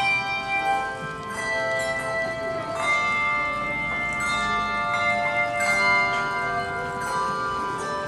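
Handbell choir ringing brass handbells in chords, a new chord struck about every one and a half seconds and each ringing on into the next.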